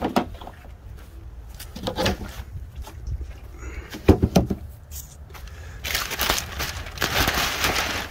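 Plastic sheeting handled and pulled back, with a few knocks and thumps, the loudest about four seconds in, then a stretch of dense crinkling and rustling over the last two seconds.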